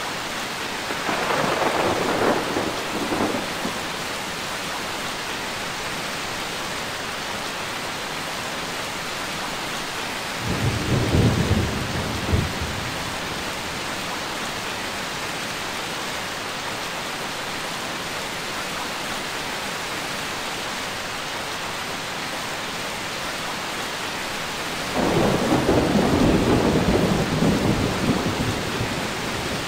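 Steady heavy rain with three rolls of thunder: one about a second in, a deeper, lower one about ten seconds in, and a longer rumble starting about 25 seconds in that runs several seconds.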